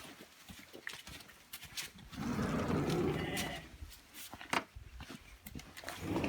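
A farm animal bleating: one call lasting about a second and a half, about two seconds in, and another starting near the end.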